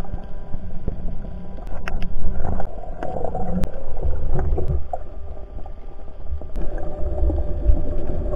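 Muffled underwater rumble and water movement against the camera housing, with a few scattered sharp clicks.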